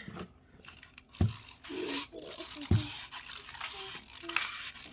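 Rustling and crinkling of plastic packaging as small toys are handled, with two dull knocks, about a second in and again near the three-second mark.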